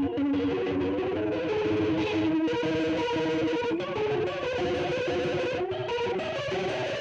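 Electric guitar with P90 pickups played through a flanger pedal set to a fast modulation speed: a run of single notes with a quick warbling sweep over them, which sounds like a laser or stun gun.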